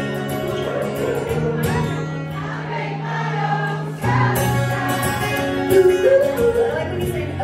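Live band performance: a woman singing lead over acoustic and electric guitars with held low notes underneath, heard from within the audience.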